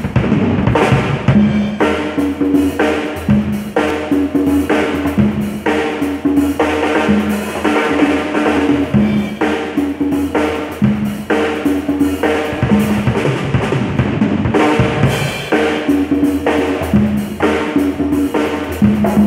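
A PDP drum kit and a pair of congas played together in a steady repeating groove: kick drum, snare and cymbals under the pitched slaps and open tones of the congas.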